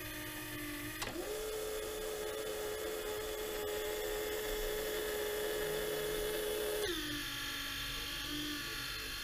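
Small electric drive motor of a model cable car whining steadily. Its pitch steps up sharply about a second in, holds, and drops back near seven seconds.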